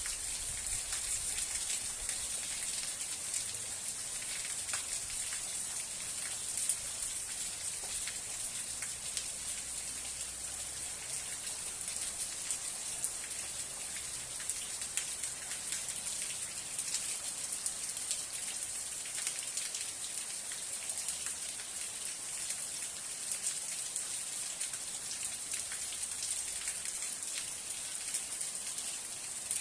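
Steady rain falling, a dense, even hiss of many small drops ticking on a surface, with a few louder single drops now and then.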